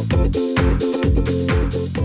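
Upbeat intro music with a steady beat, about two beats a second, under repeating sustained chords.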